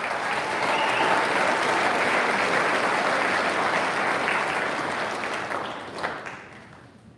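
Audience applause, a steady round of clapping that dies away over the last second or so.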